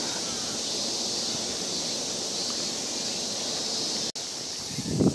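Steady high drone of insects in the garden's trees, over a low rushing of wind on the microphone. The sound drops out briefly about four seconds in, and a few louder thumps come near the end.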